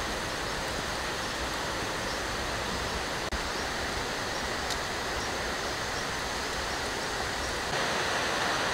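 A steady, even rushing hiss without pitch, with a faint tick about three seconds in and a slight rise in level near the end.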